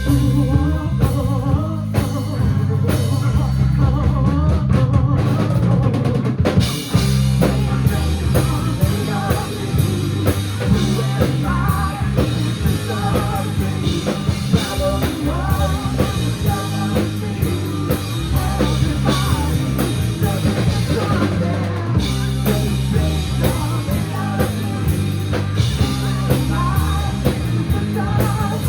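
Live rock band playing an instrumental stretch, led by the drum kit and bass, with the fuller band sound coming in about seven seconds in.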